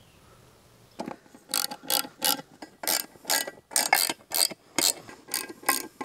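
Hand ratchet working the 12 mm bolts of a backhoe seat plate, clicking in short strokes about two or three times a second, starting about a second in.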